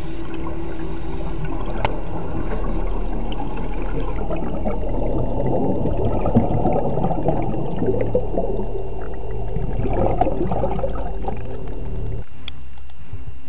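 Muffled underwater rumble and gurgling, with a low steady hum under it. The low sound drops out about a second before the end.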